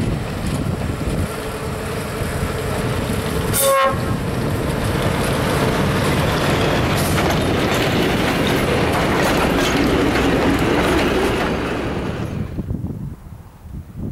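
Brill railcar and its trailer carriages passing close by: the horn sounds in the first few seconds, then the wheels clatter over the rail joints as the carriages go past. Near the end the sound cuts suddenly to quieter wind.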